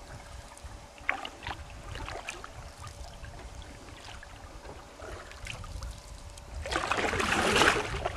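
Canoe paddle strokes: water dripping and trickling off the blade, with small knocks and splashes, and a louder swish of water about seven seconds in.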